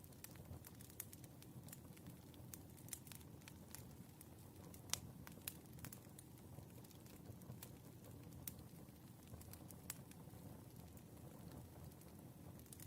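Firewood burning: faint, irregular crackles and pops over a low rumble of flame, with one sharper pop about five seconds in.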